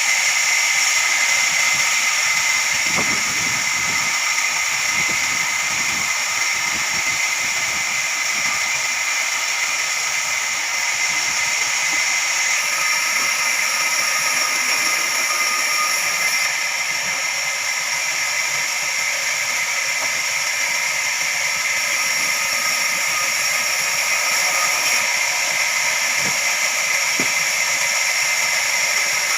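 Band sawmill running steadily: a continuous high whine over a hissing sawing noise, with no break.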